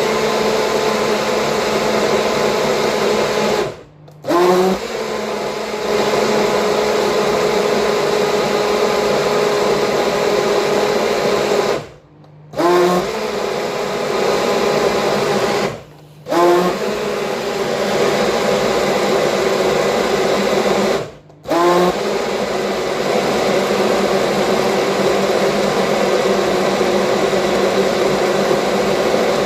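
Electric kitchen blender running steadily, switched off and on again four times, with the motor's whine rising each time as it spins back up.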